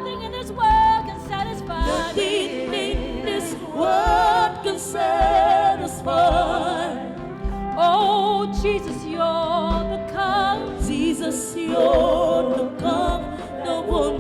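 Live gospel worship music: a singer sustaining and bending long notes with wide vibrato over the band's accompaniment, between sung lines of the chorus.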